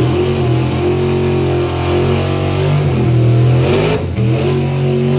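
Drag racing car engine running loud at a held, steady pitch, dipping briefly and coming back up twice.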